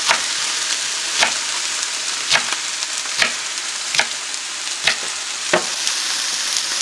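Ground beef patties and mushrooms sizzling steadily in a frying pan, with a kitchen knife chopping lettuce on a wooden cutting board, a sharp chop about once a second.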